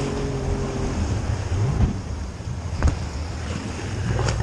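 Lifeboat engine humming, then easing off about a second in, leaving wind buffeting the microphone and the sea washing around the boat, with a few thuds of gusts on the mic.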